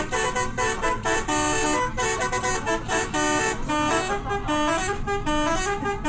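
Bus telolet horn, a multi-tone air horn, playing a quick tune of short toots that jump between pitches several times a second, over low road noise.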